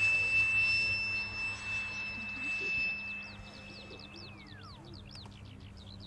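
Electric ducted fan (impeller) of a Schreiner F-18 model jet whining at a steady high pitch as it fades, then sliding sharply down in pitch about four seconds in as the fan spools down. Birds chirp repeatedly through the second half.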